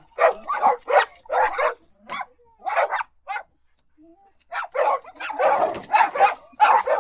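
Dog barks in a quick string of short separate barks, with a lull about halfway through, then a denser run of barking near the end.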